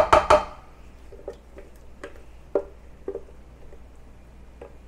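Blended mango puree being scraped out of a blender jar into a bowl: two sharp knocks at the start, then soft, scattered taps and squishes.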